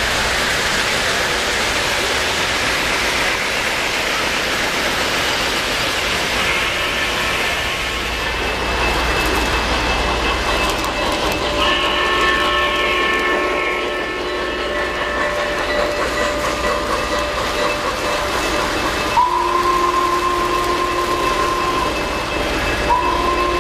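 3-rail O gauge model train running on its track with a steady rumble and clatter. A locomotive whistle chord sounds in one long blast from about halfway in, then in two shorter blasts near the end.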